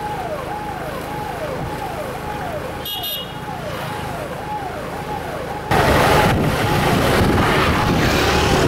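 An electronic vehicle siren gives a repeating falling tone, about two sweeps a second, over steady road and engine noise. The road noise gets much louder about six seconds in.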